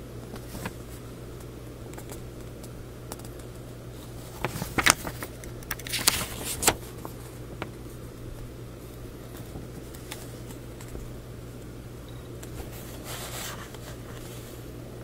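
Paper instruction booklet being handled and its pages turned: a cluster of crisp rustles and crackles around the middle and a softer rustle near the end, over a steady low hum.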